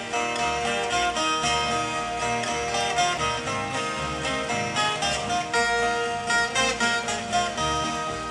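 A group of viola caipira (Brazilian ten-string folk guitars) playing an instrumental piece together, with busy plucked notes over a low rhythmic bass.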